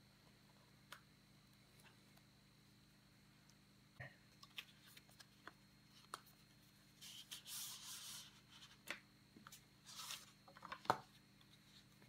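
Faint handling of a paperboard box as it is slid open: scattered light taps and clicks, a soft rustling slide of card against card about seven seconds in and again around ten seconds, and one sharp click near the end, the loudest sound.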